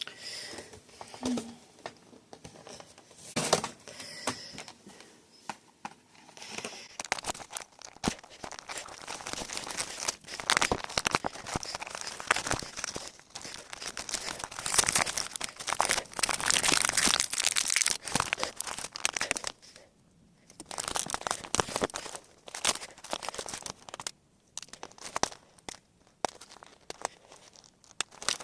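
Doll box packaging being worked open by hand: plastic and cardboard crinkling and tearing in irregular bursts, busiest in the middle, with a couple of brief lulls later on.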